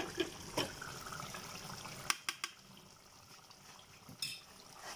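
A spoon clicking against a bowl and swishing through yogurt mixed with mint chutney as it is stirred. About two seconds in come a few sharp clicks, then a quieter stretch of faint wet bubbling from chicken karahi simmering in a clay pot.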